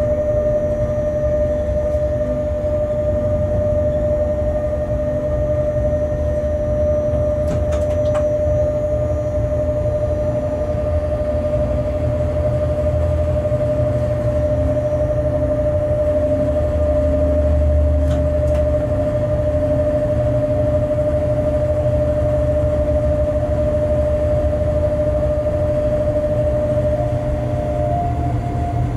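Freight locomotive cab while the train runs, a steady low rumble under a constant high whine. The whine steps up slightly near the end, and faint clicks come about 8 and 18 seconds in.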